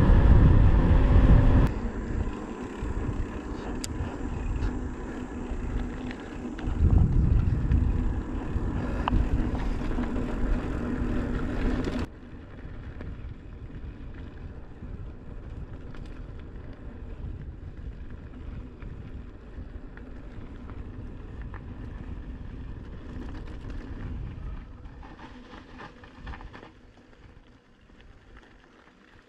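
Vehicle on the move: steady engine and road noise, loudest at the start, dropping abruptly about two seconds in and again about twelve seconds in, then quieter and fading out near the end.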